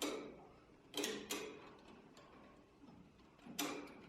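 A few faint, sharp clicks and knocks: one at the start, two close together about a second in, and another near the end.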